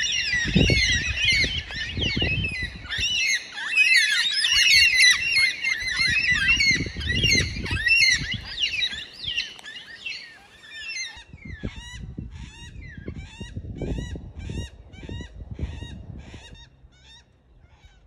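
A flock of white-tailed black-cockatoos calling, many overlapping calls at first. From about eleven seconds in, the calls thin to a regular series of single repeated calls, about two a second, which fade out near the end.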